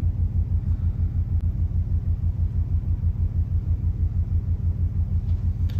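Steady low throbbing hum of a ship's machinery, pulsing about eight times a second.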